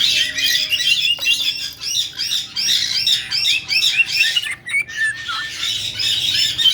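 Caique parrots chirping: quick, overlapping high arched chirps, several a second, with a short break a little past halfway.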